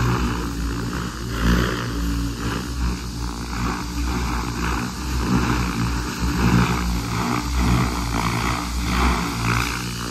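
Goosky RS7 700-size electric RC helicopter in flight: a steady rotor whir with a pulsing swish of the blades and a faint motor whine that dips in pitch midway and rises again near the end. The new helicopter is flown gently while it is still being broken in.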